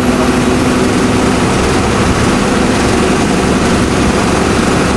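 Steady engine and road noise of a moving vehicle, heard while riding in it. A low steady hum runs through the first second and a half, then fades.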